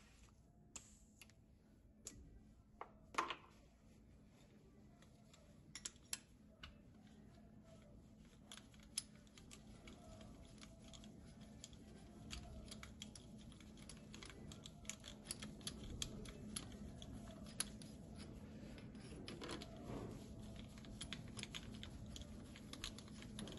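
Faint, scattered light clicks and small metallic knocks from hand tools and the compression-tester hose fittings being worked on a diesel engine. This is the quiet handling between cylinders of a compression test.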